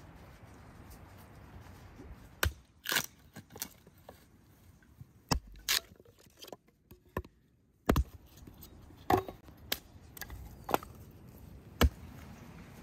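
Hatchet chopping a plank into kindling on a chopping block: a series of about a dozen sharp, irregular chops and cracks of splitting wood.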